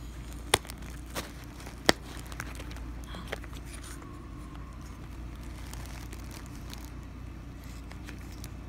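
Glossy plastic makeup bag and its packaging handled: two sharp snap clicks about half a second and two seconds in as the flap's snap fasteners are opened, a couple of fainter clicks, then soft crinkling and rustling.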